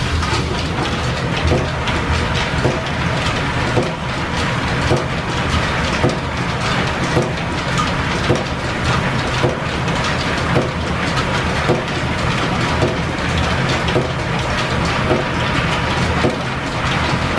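Line-shaft-driven lathe running, with belts and shafting turning steadily and a regular knock repeating a little under twice a second.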